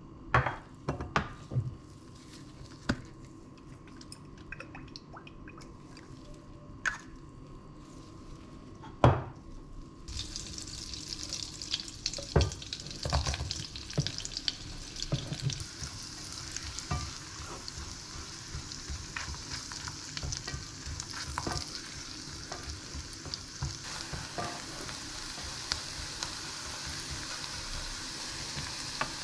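A spoon knocks and taps against a pot of melting butter, then from about ten seconds in, sliced leeks sizzle steadily as they fry in the butter, with the scrape and clatter of the spoon stirring them.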